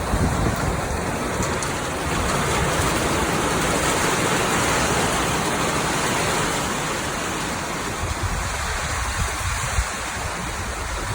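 Rain falling steadily as an even hiss, with wind gusting across the microphone as a low rumble, strongest in the first couple of seconds and easing after that.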